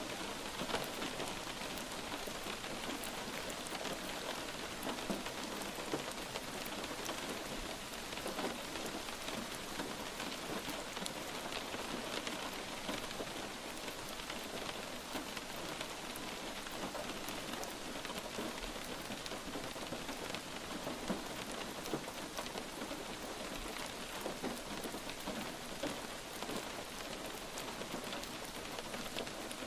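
Steady light rain falling on a surface, an even hiss with many small drop ticks.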